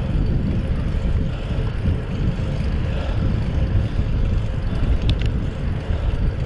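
Wind buffeting the camera microphone on a moving bicycle, mixed with road noise from riding on asphalt. There are two light clicks about five seconds in.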